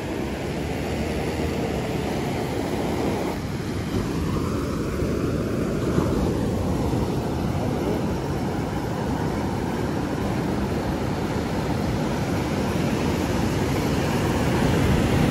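Ocean surf breaking and washing up a sandy beach: a steady roar of noise that slowly grows louder toward the end.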